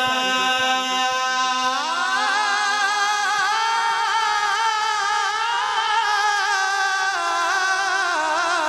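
A male naat reciter singing a long held, wavering note through a microphone and loudspeakers, the melody rising about two seconds in, with no instruments.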